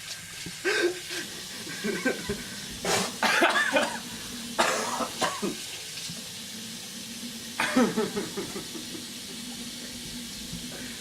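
A person coughing in four short bouts spread across several seconds.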